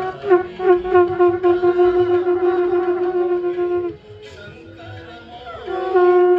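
Conch shells (shankh) blown in a Hindu aarti: one long steady note, wavering as it starts and held for almost four seconds. After a short break a second long blast begins near the end.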